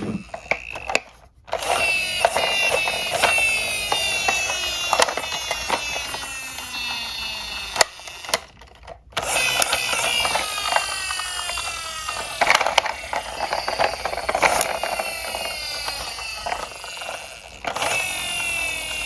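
Die-cast toy cars' wheels whirring, each whir slowly falling in pitch as it runs down, with frequent sharp clicks and clatters of metal toys. The sound breaks off briefly twice.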